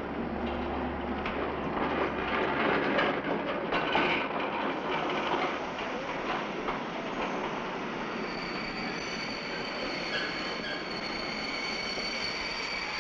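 A train moving through a large railway station, its wheels rattling and clanking over the rails. From about eight seconds in a steady high-pitched metallic squeal rises over the rumble.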